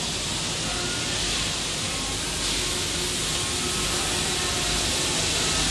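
Steady machine noise of a CNC workshop cutting acetate eyeglass-frame parts: an even hiss with a few faint steady tones beneath it.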